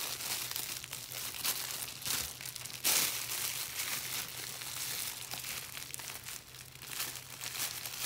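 Clear plastic bag crinkling and rustling in the hands as its end is twisted and folded closed, with a louder crackle about three seconds in.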